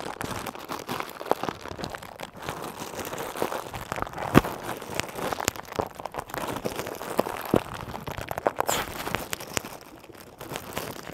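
Lettuce leaves being torn and crinkled by hand, a steady crackling and crunching full of small clicks, with a couple of sharp knocks, the loudest about four and a half seconds in.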